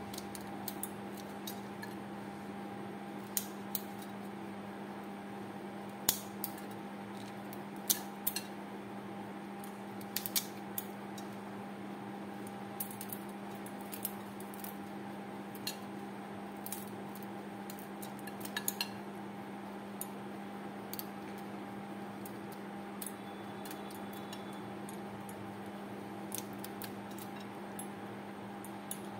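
Kitchen scissors snipping through a raw prawn's shell, with scattered sharp clicks and light metal clinks at irregular moments, over a steady background hum.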